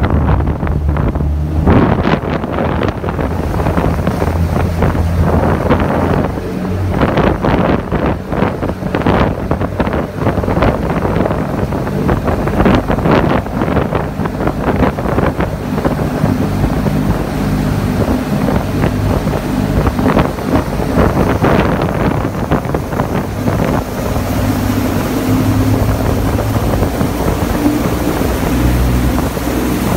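Small passenger ferry underway, its engine a steady low hum beneath gusts of wind buffeting the microphone and the rush and splash of water and wake.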